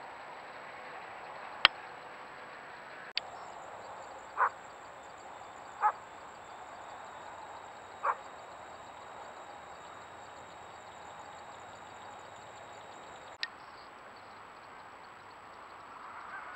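Trail-camera audio: a steady outdoor hiss with a sharp click a couple of seconds in and small clicks where the clips are spliced. Three short animal calls come a second or two apart in the middle.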